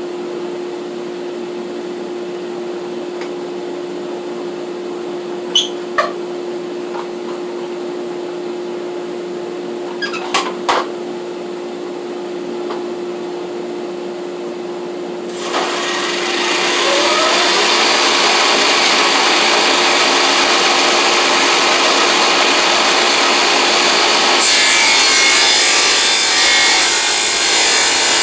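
A Shopsmith saw runs with a steady hum and a few sharp knocks, then about halfway in the blade bites into a pine 2x4 and rips a thin sliver off its edge. The cutting noise is loud and even and grows louder near the end.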